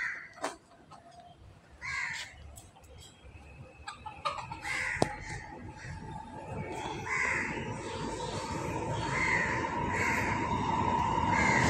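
A bird calling repeatedly, short calls a couple of seconds apart. A steady drone starts about four seconds in and grows louder toward the end.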